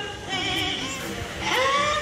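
A trained green talking parrot singing a song in a mimicked human voice: a quieter wavering phrase, then a note that swoops up about one and a half seconds in and holds.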